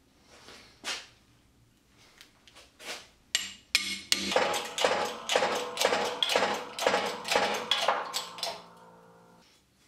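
Hammer blows on a steel shaft carrying a bronze gear from an old gearbox. A few light taps are followed by a fast run of hard strikes, about three a second, each leaving a metallic ring that fades out after the last blow.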